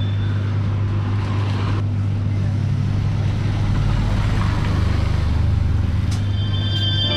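A motor vehicle's engine running steadily with a low hum, under a broad rushing noise.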